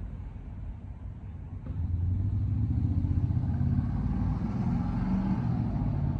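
A motor vehicle's engine rumbling as it drives by, growing louder about two seconds in and staying up.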